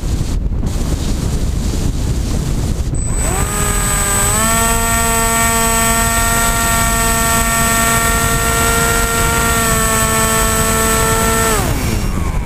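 The AXN Floater-Jet's electric motor and pusher propeller, heard from the onboard camera. At first only wind rushes over the microphone while the plane glides. About three seconds in the motor spools up with a rising hum and a thin high whine, holds a steady pitch, then winds down near the end as the throttle is cut.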